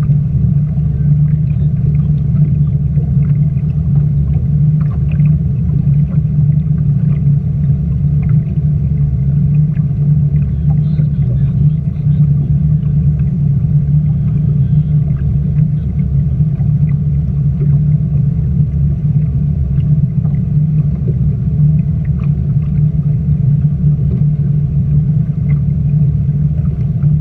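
Performance speedboat's engine running at a steady cruise, a deep, even drone.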